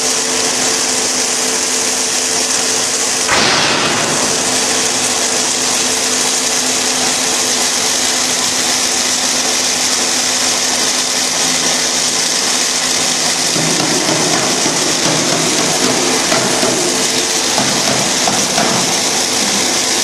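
Snack puff ring extruder running: a steady machine hum with two held tones under a strong hiss. There is a brief surge about three seconds in, and a coarser, grittier noise joins about two-thirds of the way through.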